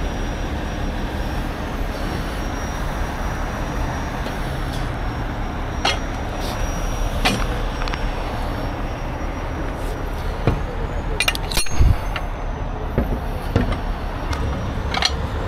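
Steady freeway traffic and heavy-vehicle noise, with a few sharp metal clinks and knocks from rigging chain and shackles being carried and handled; the loudest is a heavier thump about twelve seconds in.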